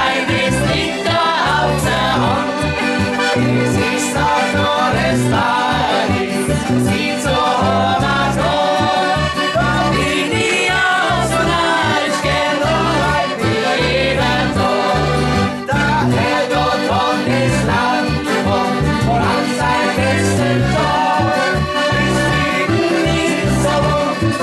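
Live band music led by an accordion melody over a steady bass and drum beat.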